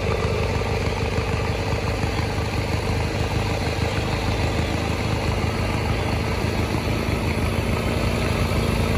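Riding lawnmower fitted with ATV snow tracks running steadily as it drives through snow, its engine growing a little louder near the end as it comes closer.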